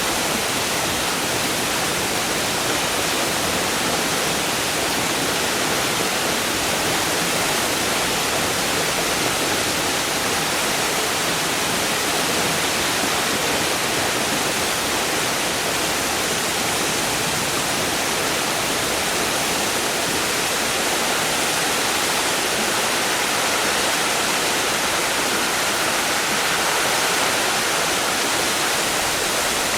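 Largish waterfall with a constant, even hiss of turbulent falling water, with some gurgling and splashing.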